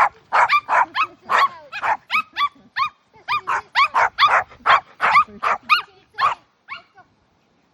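Dogs barking in quick, high-pitched barks, about two to three a second, pausing briefly about three seconds in, then thinning out and stopping near the end.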